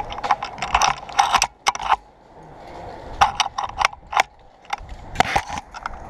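Airsoft guns firing in short, irregular bursts of sharp mechanical clicks.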